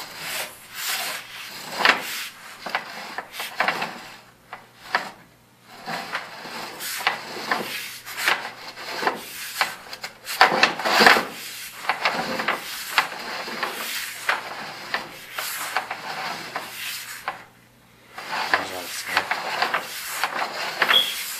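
Irregular scraping and rubbing of a sewer inspection camera and its push cable being worked along a cast iron sewer pipe, with brief pauses about four to six seconds in and near the end.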